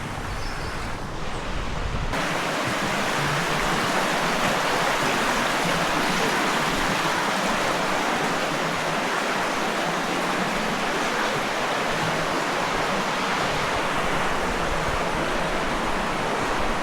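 Steady rushing water of a stream, louder and fuller from about two seconds in.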